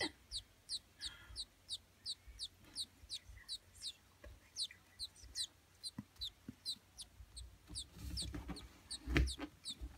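Baby American robin nestling peeping: a steady run of short, high, falling peeps, about two or three a second. A soft thump near the end.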